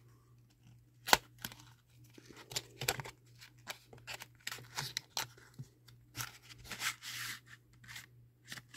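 A cardboard box of colored pencils being opened and handled: a run of papery scrapes, rustles and small clicks, with a sharp click about a second in.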